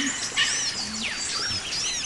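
Wild forest birds singing and calling together, a busy chorus of quick, high, arching whistled notes.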